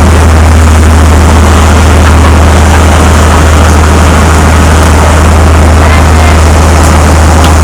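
Fishing charter boat's engine running with a steady low drone under a constant rushing noise.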